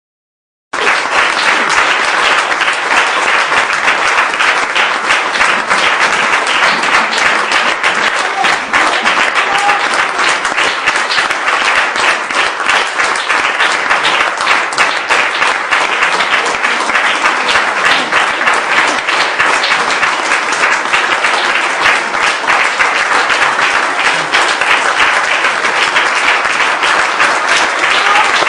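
Audience applauding, a dense, steady sound of many hands clapping that cuts in abruptly about a second in.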